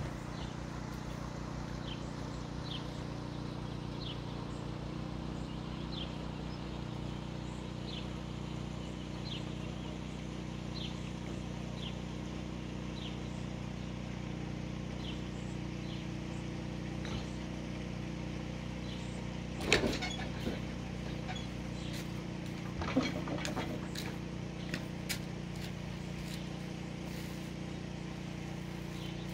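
Narrowboat diesel engine running steadily at low speed, an even low drone. A faint high chirp repeats about once a second through the first half, and two sharp knocks come about two-thirds of the way through.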